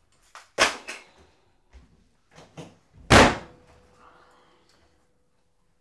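A door slammed hard about three seconds in, after a few lighter knocks and steps as someone leaves the room.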